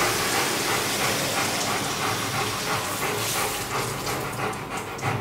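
Hand-held shower head spraying water over a Rottweiler's coat in a stainless-steel grooming tub, a steady hiss.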